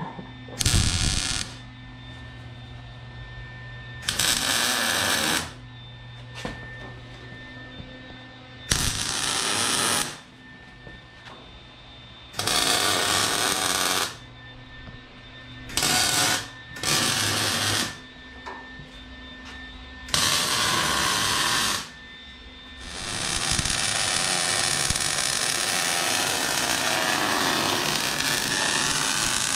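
MIG welder laying short tack welds on a truck frame: seven separate bursts of crackling arc, each a second or two long, to hold a C-notch bracket in place before the full weld. Near the end it settles into one continuous weld bead. A steady hum is heard between the tacks.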